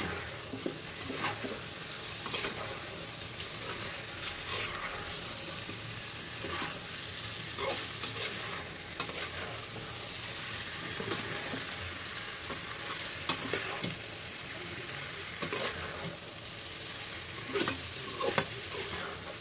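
Besan (gram-flour) pieces frying in spiced masala in a kadhai on high flame, sizzling steadily while a spatula stirs them, with irregular scrapes and taps of the spatula against the pan.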